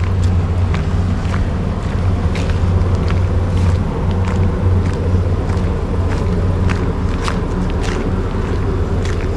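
A steady low rumble, with the footsteps of a person walking, about one and a half steps a second.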